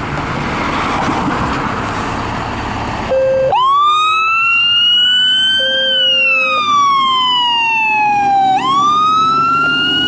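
Fire engine leaving the station: diesel engine and road noise, then its electronic siren starts about three seconds in and sweeps up and down in a slow wail. Short steady horn blasts sound as the siren starts and again near the middle.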